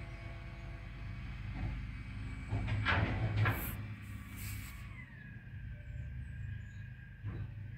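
Bin lorry's engine running with a steady low rumble. About three seconds in come a louder clatter and hiss, and a steady high whine steps down in pitch around five seconds in.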